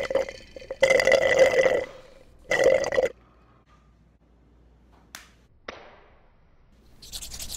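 A person burping twice after drinking through a straw: a long, loud burp about a second in and a shorter one about three seconds in. Two brief sharp sounds follow a couple of seconds later.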